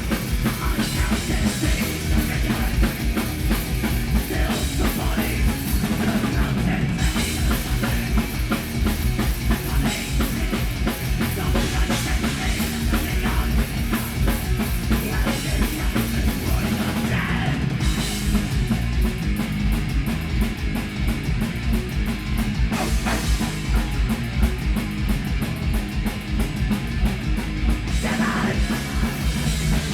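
A heavy metal band playing live: loud guitars over fast, dense drumming.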